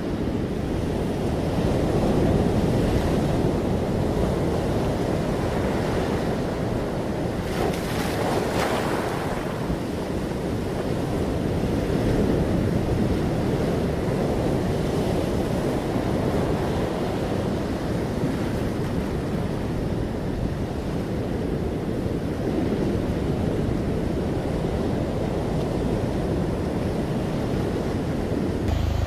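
Pacific surf breaking and washing over rocks and sand in a steady wash, with wind buffeting the microphone. A brief louder hissing surge comes about eight seconds in.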